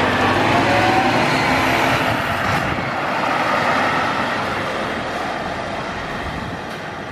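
V/Line road coach pulling away and driving off, its engine and road noise loudest at first and fading steadily as it moves away.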